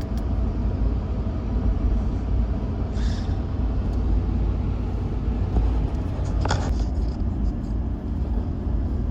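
Steady low road rumble inside a moving car, with two brief high squeaks, one about three seconds in and one around six and a half seconds.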